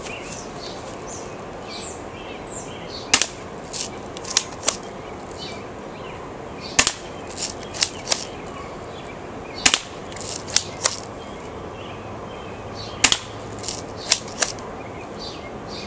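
Spring-powered plastic airsoft pump shotgun being fired and re-cocked: four sharp snaps about three seconds apart, each followed by three lighter plastic clacks as the pump is worked.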